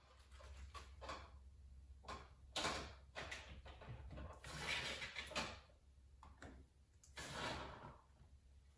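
Faint scraping and rustling as a wire fish tape, slick with foam lubricant, is pushed through the rubber wiring boot at the liftgate hinge. There are a few slides of about a second each, over a low steady hum.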